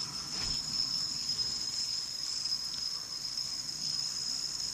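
Fidget spinner spinning freely on its bearing: a steady, high-pitched whir.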